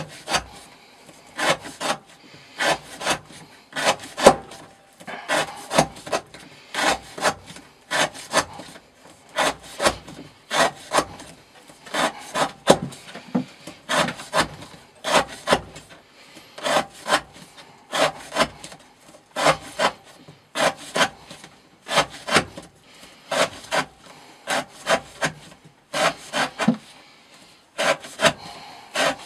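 Knife blade slicing through rope in repeated rhythmic cuts, a rasping stroke roughly every second and a half with a few short pauses, as in an edge-retention cutting test.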